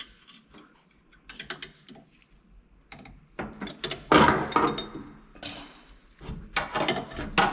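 Ratchet spanner clicking in irregular runs, with metal clinks, as a 14 mm carburetor mounting nut on a 1964 VW Beetle engine is undone. The clicking is busiest in the second half.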